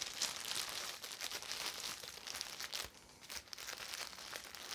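Clear plastic wrapping around a potted cactus crinkling as it is turned and handled, a dense run of small crackles with a short pause about three seconds in.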